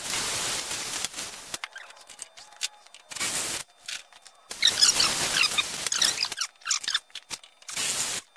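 Cordless drill boring rivet holes through aluminium tubing in several short bursts, with a sharp knock a little after three seconds in and a scratchy, crackling stretch in the middle.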